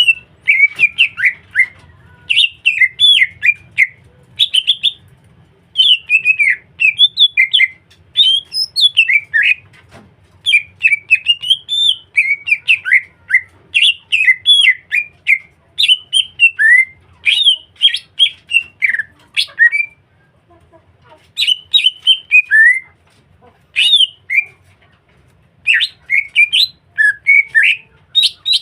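Green leafbird (cucak hijau) singing energetically: fast, varied chirps and whistled phrases in bursts of a second or two with short gaps, with a longer pause about two-thirds of the way through.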